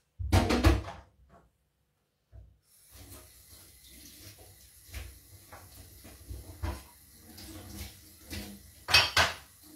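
Tap water running into a sink as a stencil is rinsed, with clattering and knocks of things handled in the sink. There is a loud clatter in the first second and another near the end; the water starts about three seconds in.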